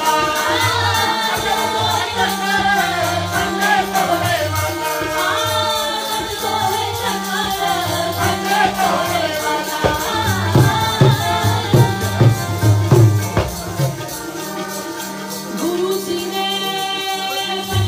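Sikh kirtan: a woman sings over a harmonium's held notes, with tabla drumming. The tabla's bass strokes come in strongly about ten seconds in.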